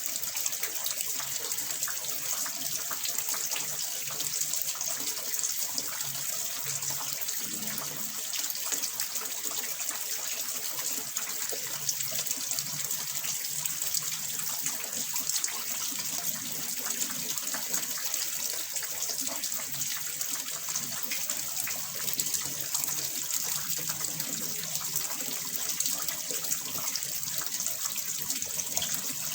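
Water running steadily into a small fish pond, a continuous splashing trickle.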